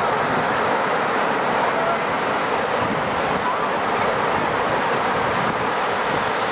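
North Sea surf breaking and washing up over wet sand and pebbles, a steady rush of waves.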